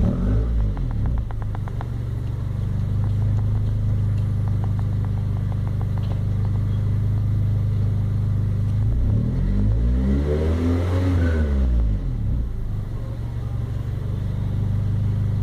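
Honda Civic 1.6 SOHC four-cylinder engine idling steadily after repair for misfire and knock-sensor codes. It settles down from a rev right at the start, then is revved once about nine seconds in, the pitch rising and falling back to idle by about twelve seconds.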